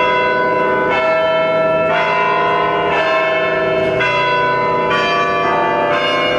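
Orthodox cathedral bells ringing: a fresh strike about once a second over long, overlapping ringing tones.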